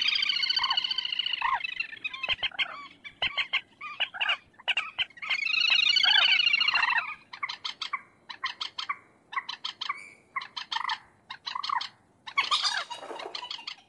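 Common moorhen calling: two long calls of about two seconds each, then a run of short clipped calls a few a second, and a last louder burst near the end.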